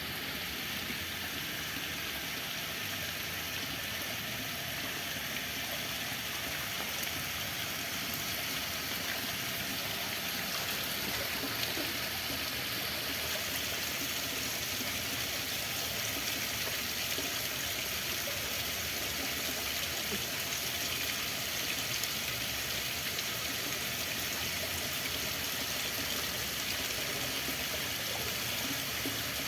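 Flowing water rushing steadily and evenly, with no breaks or distinct splashes.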